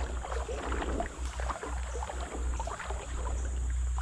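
Creek water trickling and gurgling steadily, over a low rumble on the action camera's microphone.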